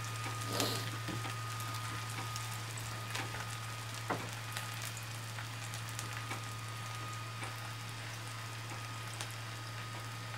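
Chapli kabab patty frying in shallow oil on a flat iron tawa: a steady sizzle with scattered small pops and crackles, over a steady low hum.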